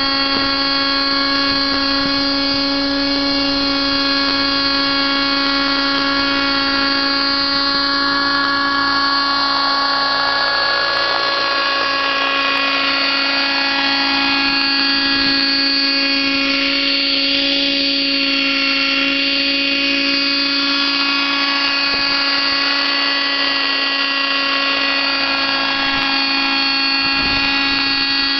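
Kyosho Concept 30 RC helicopter's .30-size nitro glow two-stroke engine and rotors running at flight speed, a steady high-pitched buzz that holds its pitch. The sound's colour shifts through the middle stretch as the helicopter moves about close by.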